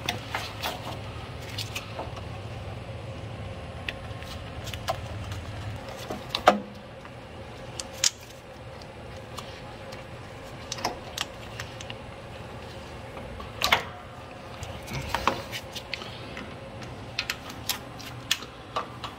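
Scattered small metallic clicks and clinks at irregular intervals from vice grips and needle-nose pliers working on a mower's rubber fuel line at the fuel filter.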